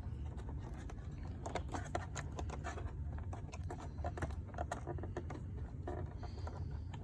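Many small, quick clicks and taps of hands fitting a VGA cable plug into its port, over a steady low hum.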